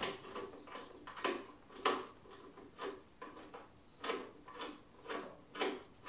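Light, irregular clicks and knocks, roughly one or two a second, from a portable gas heater's housing and gas hose fitting being handled and set in place.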